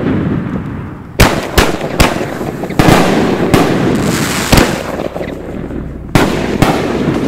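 Bombas de la Muerte 6-inch XXL canister firework shells launching and bursting overhead: a string of about seven loud, sharp booms at irregular gaps of a fraction of a second to a couple of seconds, each trailing off in a rolling echo, with continuous rumble between them.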